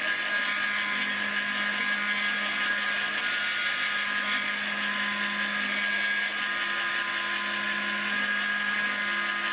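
Proxxon MF70 CNC micro mill isolation-milling a circuit board: the spindle motor runs with a steady high whine over a hiss, and the stepper motors add a lower hum that starts and stops as the axes move.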